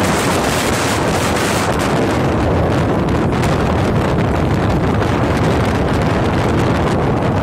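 Wind rushing and buffeting over the microphone of a phone on a moving motorcycle, steady and loud, with the motorcycle's engine running underneath.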